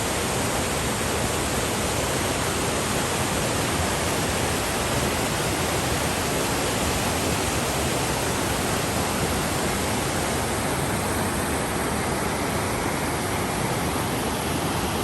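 Wahkeena Falls pouring: a steady, even rush of falling water.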